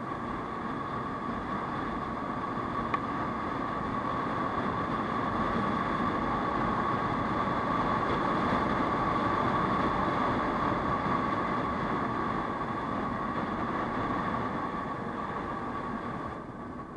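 Steady riding noise from an Aprilia SR 150 scooter at cruising speed: wind on the microphone mixed with the drone of its single-cylinder engine and the tyres on the road. It swells a little around the middle and drops slightly near the end.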